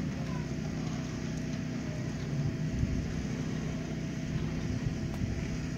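Steady low mechanical hum with a few fixed low tones, as from an idling engine or a ventilation unit, over faint outdoor background noise.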